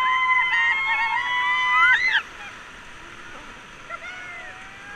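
High-pitched whooping shrieks from people on a raft, held for about two seconds, rising and then breaking off suddenly; after that, the steady rush of river water.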